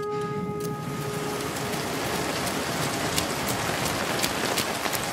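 Steady rain falling on a car, heard from inside the cabin: an even hiss with scattered sharp drop hits.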